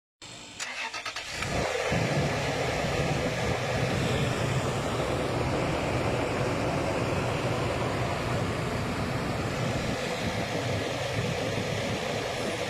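Car engine cranking for about a second, then catching and running steadily; the engine has a faulty fuel pressure regulator.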